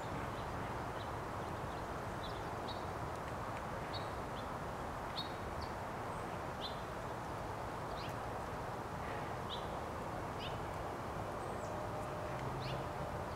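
Small birds chirping outdoors: short, high calls, some dropping in pitch, scattered every second or so over a steady background hiss.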